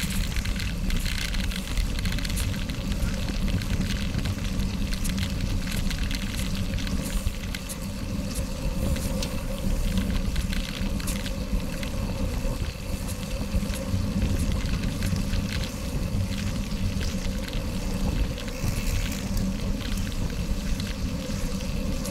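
Wind rushing over a bike-mounted action camera's microphone and knobby gravel tyres rolling on a packed gravel road at about 21 mph, a steady rumble with many small clicks and rattles from the gravel and the bike.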